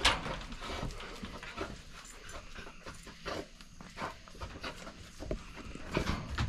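Coon dog panting inside a wire kennel, with a sharp clank right at the start as the kennel gate is swung open and scattered rattles and knocks of the gate and the dogs moving about.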